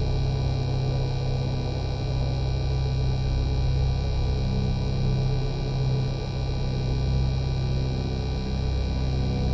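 Synthesized UFO sound effect: a steady humming drone with a deep low hum under a cluster of high, held ringing tones, a flying-saucer hover sound.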